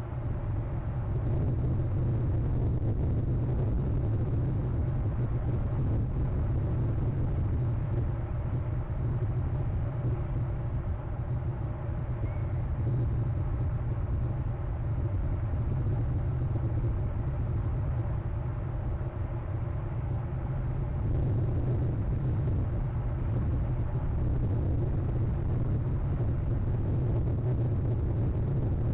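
A steady low rumble, unbroken throughout.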